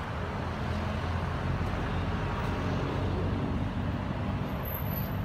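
Steady low rumbling outdoor background noise with no distinct events, and a brief, very high thin tone near the end.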